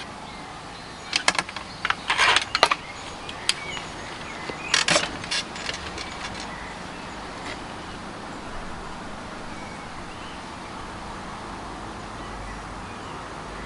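Remington Warhawk .22 break-barrel spring-piston air rifle being cocked and loaded: a cluster of metallic clicks and clacks between about one and three seconds in, then another sharp clack about five seconds in as the barrel is closed. A steady outdoor background hum runs underneath.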